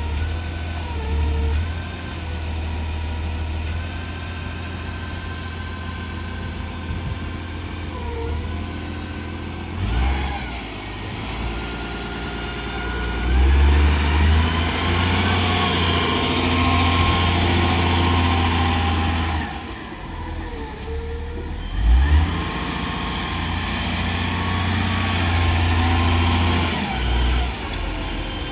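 Diesel engine of a Jungheinrich DFG670 forklift running, speeding up and settling back several times as the truck is worked.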